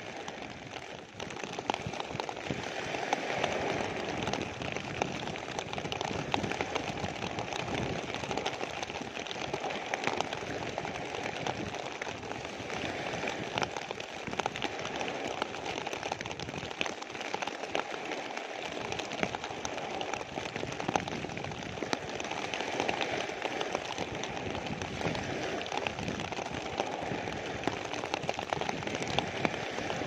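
Rain falling on a clear plastic sheet close to the microphone, a steady hiss full of separate drop ticks, over the wash of small sea waves breaking on a pebble beach.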